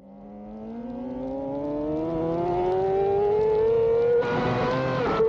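Racing motorcycle engine accelerating, its pitch climbing steadily as it fades in and grows louder. A rush of wind noise joins about four seconds in.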